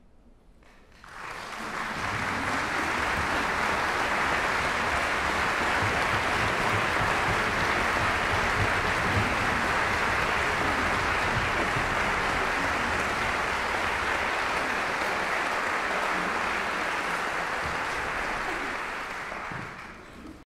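Audience applause that breaks out suddenly after a second of hush, holds steady, and fades away near the end.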